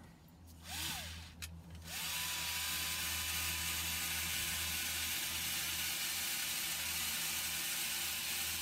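Cordless screwdriver driving a screw into the top of a small metal gas canister. It gives a short burst about a second in, then runs steadily with a high, even whine for about six and a half seconds.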